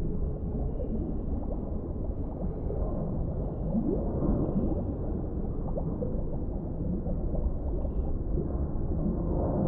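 Underwater ambience: a steady deep rumble with a muffled gurgling wash, and a few short rising pitch glides about four seconds in.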